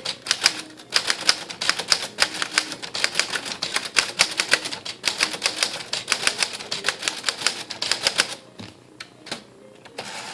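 1937 Corona Standard portable typewriter typing in capitals with the shift lock down: a fast, steady run of typebar strikes that thins to a few scattered strikes after about eight seconds.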